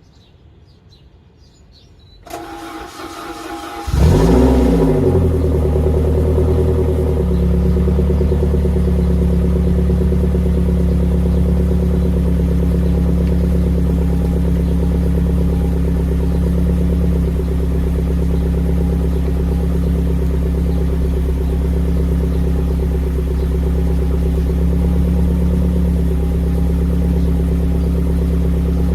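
1993 Saab 900 turbo's B202 2.0-litre four-cylinder engine started through its aged, leaking Klarius exhaust. It cranks briefly, catches about four seconds in with a short flare of revs, then settles into a steady idle.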